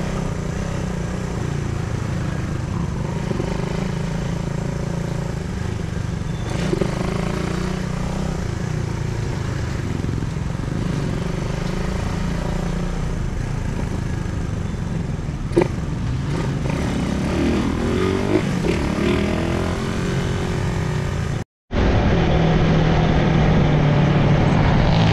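Motorcycle engine running steadily at road speed, mixed with wind and road noise. The sound drops out for a split second about 21 seconds in, then comes back a little louder.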